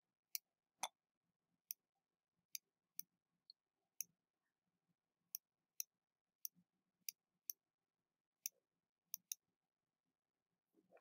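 Computer mouse clicking: about fifteen short, sharp clicks at irregular intervals, roughly a second apart.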